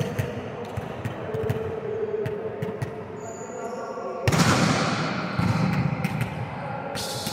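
Volleyballs being hit and bouncing on a hard court floor, a string of sharp knocks mixed with voices. About four seconds in the sound turns suddenly louder and denser for a few seconds.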